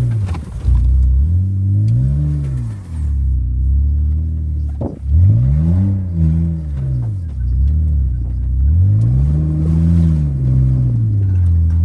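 BMW car engine being revved up and down again and again, the pitch rising and falling several times, with a brief knock about five seconds in.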